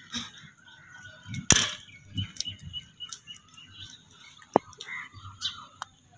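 Small birds chirping, with a quick run of high repeated chirps a couple of seconds in. A few sharp clicks or knocks are mixed in; the loudest comes about one and a half seconds in.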